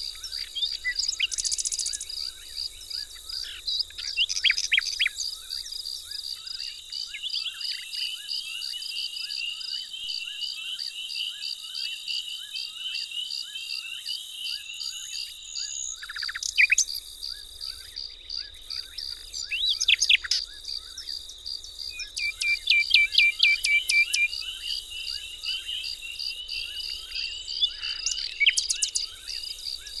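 European starlings, mostly juveniles, calling at a feeder in several short bursts of quick repeated calls. Underneath them runs a steady, high, fast-pulsing trill.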